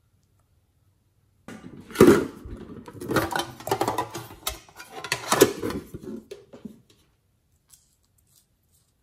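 Metal tin box being handled and opened: a run of rattling, scraping and sharp metallic knocks, loudest about two seconds in and again a little past five seconds, dying away about seven seconds in.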